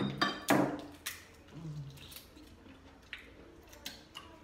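Boiled shrimp being peeled by hand: shells cracking and snapping in a string of sharp clicks and crackles, the loudest about half a second in.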